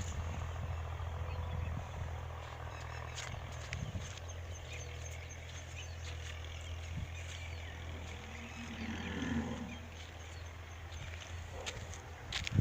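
A short, low moo from cattle about nine seconds in, over a steady low hum.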